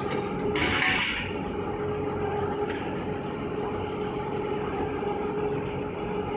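Automatic tube loading and unloading system of a fiber-laser tube cutter running: a steady machine hum with two steady tones in it. A brief hiss comes between about half a second and a second in.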